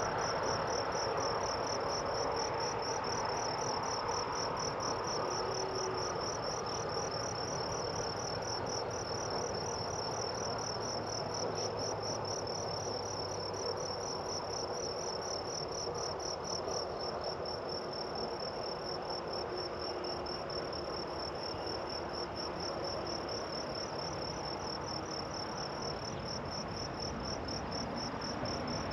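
Insects calling in a high, rapidly and evenly pulsing trill that runs steadily, over a steady lower background noise.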